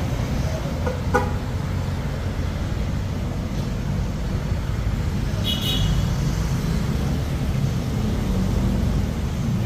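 Suzuki Jimny JB74 on the move, its engine and tyre noise making a steady low rumble. There is a sharp click about a second in and a brief high chirp a little past halfway.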